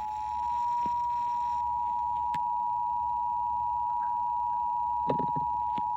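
Emergency alert attention tone: a loud, steady two-pitch tone held without a break, the signal that comes before a broadcast tornado warning. A few faint clicks sound under it.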